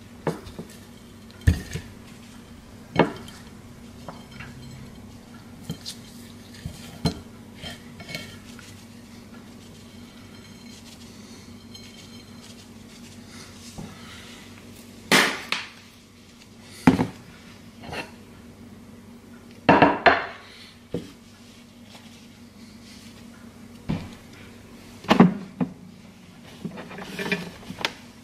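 Scattered clinks and knocks of a ceramic plate and seasoning container being handled while raw chicken is seasoned and turned on the plate, over a steady low hum.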